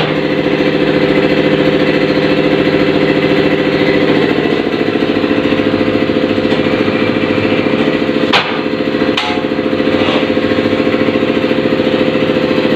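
A motor running steadily, a loud hum with a fast, even pulse, broken by three sharp knocks about eight to ten seconds in.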